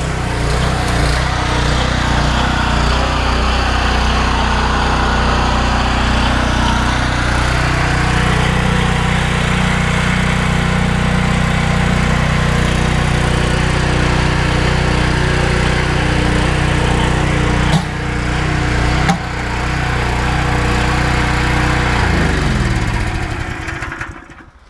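Engine-driven pressure washer running steadily, with water jetting through a rotary flat surface cleaner. There are two brief clicks about two-thirds of the way in. Near the end the engine is shut off, and its pitch falls as it winds down to a stop.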